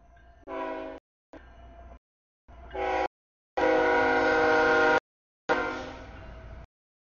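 CSX diesel freight locomotive's horn sounding a series of blasts for the grade crossing as the train reaches it: a short blast, then a longer one building up, a long steady blast of about a second and a half, and a final blast that fades. A low rumble of the train runs under the horn, and the audio drops out completely between blasts.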